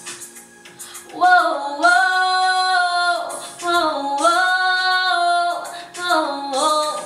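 A female voice singing a wordless "oh, ooh" vocal run in a pop song: three long held phrases about a second or two each, sliding between notes.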